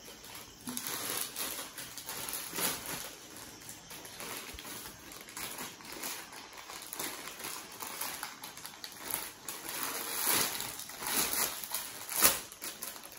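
Gift packaging rustling and crinkling as it is unwrapped by hand: a run of irregular rustles, with louder crackles near the end.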